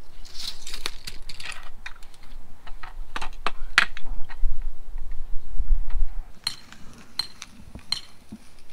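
Light clicks, taps and metallic clinks as a steel tape measure and a level are handled on stone pavers; near the end comes a quick run of evenly spaced metallic ticks, about three a second.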